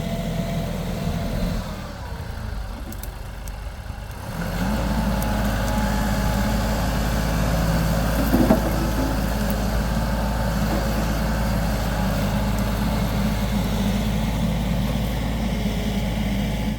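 A motor vehicle's engine running steadily at an even speed, starting in about four seconds in, with a brief sharper sound about eight and a half seconds in.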